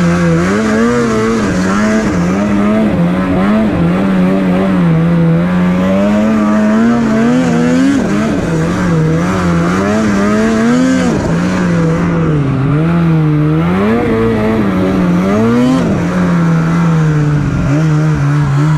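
Snowmobile engine running close by under changing throttle, its pitch wandering up and down, with several quick blips of throttle in the second half.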